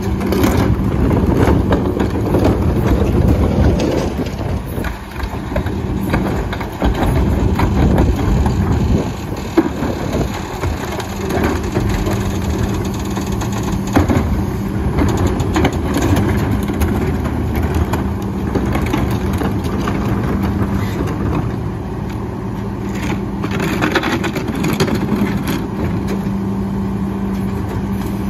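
Heil PowerTrak rear-loader garbage truck on an Autocar WX chassis running with a steady hum, while trash carts are tipped into its hopper and the load is crushed, with rumbling and banging of carts and a couple of sharp knocks.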